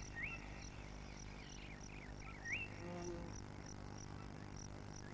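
Faint wild bush ambience: an insect chirping steadily at a little over two chirps a second, with short rising bird whistles, one near the start and one about two and a half seconds in.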